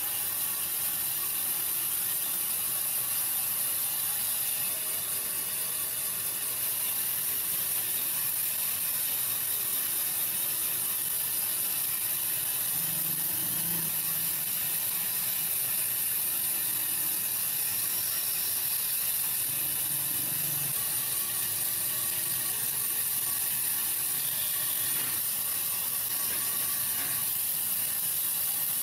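Band saw running with a steady hiss as its blade cuts a wooden hammer-handle blank along a curved line.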